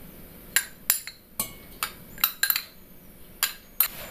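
Steel spoon clinking against a glass bowl and a stainless steel mixer-grinder jar as grated coconut is scooped and tipped in: a dozen or so sharp, irregular clinks.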